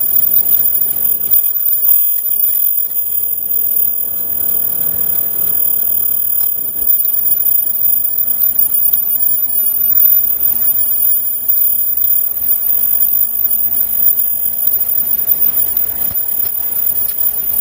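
High-speed KF94 mask-making machine running, with fast repeated ticking and a steady thin high tone over a continuous mechanical noise.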